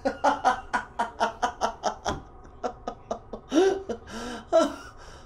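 A man laughing: a quick run of short bursts for about two seconds, then a few slower, drawn-out laughs.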